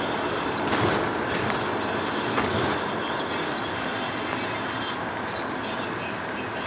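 Steady road and engine noise heard inside a van's cab while driving at motorway speed.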